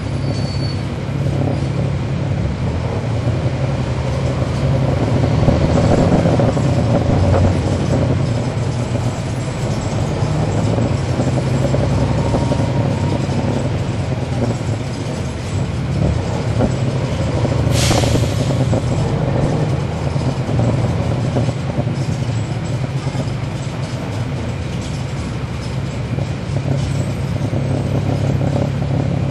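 Cummins ISL9 diesel engine of a NABI 40-SFW transit bus running under way, heard on board as a steady low drone. It grows louder about five seconds in, then settles. The ZF Ecolife automatic transmission is barely heard, and there is one short, sharp burst of air hiss about two-thirds of the way through.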